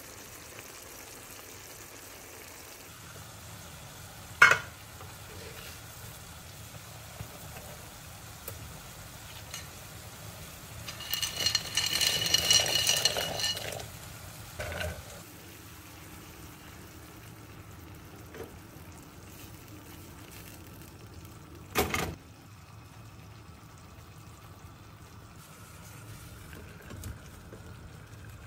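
Food frying in a pan with a steady low sizzle. A sharp utensil knock comes about four seconds in, and another later on. In the middle, a few seconds of stirring with a metal utensil scrape and ring against the pan.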